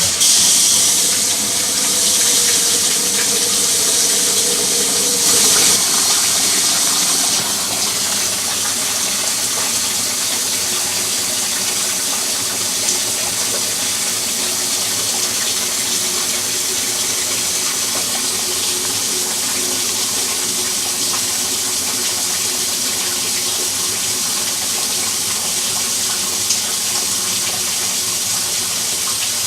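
Washing machine filling: water starts suddenly into the open tub and gushes steadily. It is hissier and louder for the first seven seconds or so, then settles into an even rush.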